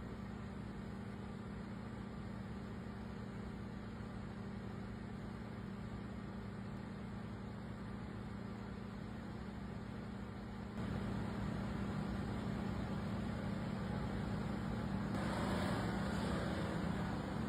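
Diesel engine of heavy machinery running steadily, a little louder after about eleven seconds. Near the end a rougher, noisier rush of sound joins it.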